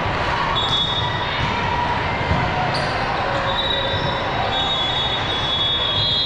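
Steady din of a busy indoor volleyball gym, with a few short, high squeaks of court shoes and a single light knock about two seconds in.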